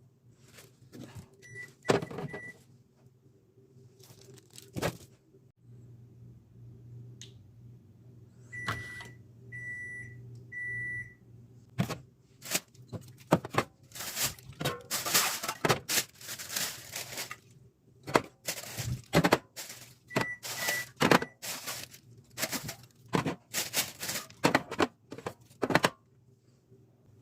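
Food containers and packages being handled and set into a refrigerator: irregular clinks, knocks and rustling, busier in the second half. Three short runs of high electronic beeps, like an appliance's door or panel alarm, sound among them, and a low steady hum runs for a few seconds in the first half.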